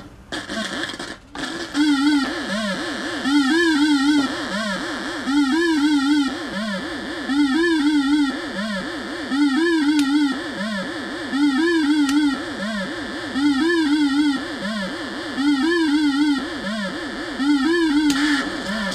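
Homemade CMOS synthesizer, its 4017 decade counters stepping 4046 PLL oscillators, playing a looping sequence of wavering, pitched electronic notes. The sequence settles in about a second and a half in and repeats about every two seconds.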